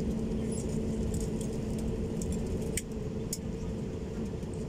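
Airbus A320neo cabin noise while taxiing: a steady low rumble of the engines with a faint steady hum, and a few sharp clicks and rattles of cabin fittings. The level drops slightly about three seconds in.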